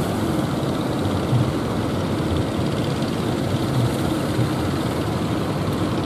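Engines of several motorised wooden fishing boats running as they push through breaking surf, a steady rumble mixed with the wash of waves.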